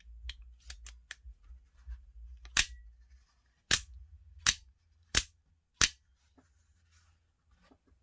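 Dual-action out-the-front automatic knife being fired and retracted with its thumb slider: a few light clicks of the slider first, then five loud, sharp snaps as the blade shoots out and back and locks. The knife is working on its newly replaced spring.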